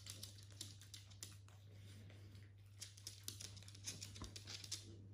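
Small dogs' claws clicking and tapping irregularly on a hard laminate floor as two Japanese Chins scuffle and shuffle around each other, faint, over a low steady hum.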